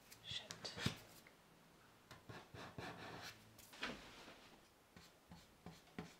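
Paintbrush strokes on a wooden peg rail: faint rubbing and brushing, with a few light clicks and one sharper tap about a second in.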